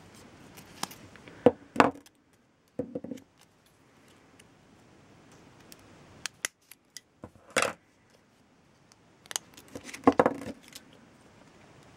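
Scissors cutting a sheet of self-adhesive plastic rhinestone strips: a few separate sharp snips and clicks, the loudest about two seconds in, near the middle and near the end, with the sheet rustling in hand between them.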